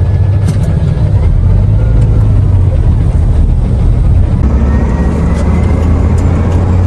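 Loaded truck's engine and road noise heard from inside the cab while driving: a steady, loud low hum.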